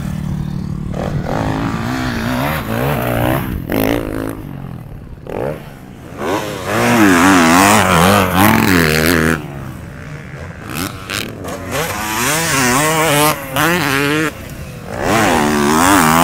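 Motocross dirt bike engines revving up and falling off again and again as bikes ride the track and take the jumps. The sound gets loudest twice, about halfway through and near the end, as a bike comes close.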